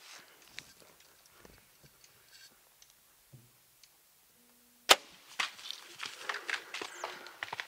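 Compound bow shot, a single sharp loud snap of the string about two-thirds of the way in. Right after it comes a quick run of cracks and clicks as the arrowed bull elk runs off through brush and dead timber.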